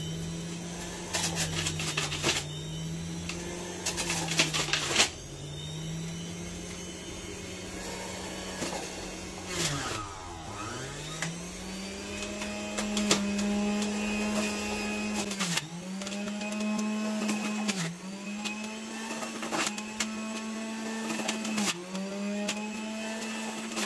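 Electric centrifugal juicer's motor running, its pitch sagging and recovering several times as pieces of ginger are pushed down the feed chute onto the spinning cutter, the deepest slowdown about ten seconds in. Clattering clicks in the first few seconds as pieces drop in.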